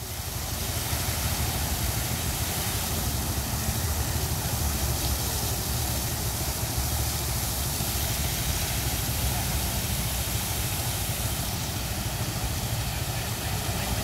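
Fountain jets spraying and splashing into the pool: a steady hiss of falling water over a low rumble.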